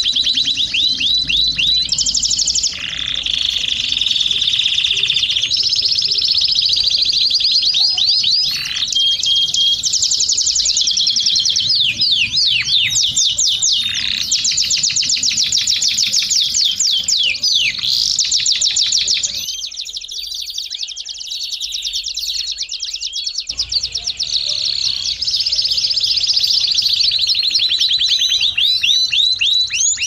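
Domestic canary singing continuously: high-pitched, fast trills and rolling runs of repeated notes that change every few seconds, softer for a few seconds past the middle.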